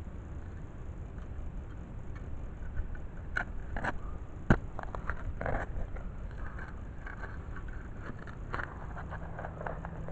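Hands and a folding shovel scraping and rustling in soil and grass at the edge of a dug hole, with scattered short clicks and one sharp knock about four and a half seconds in.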